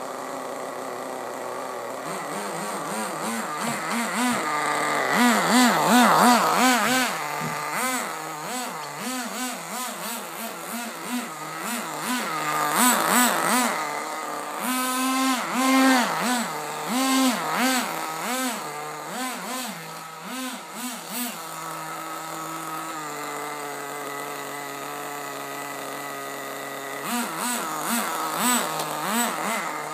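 Small glow-plug nitro engine of a 1:10 HSP Warhead RC buggy running, revving up and down in quick, repeated swings. It settles to a steady idle for several seconds past the twenty-second mark, then revs again near the end.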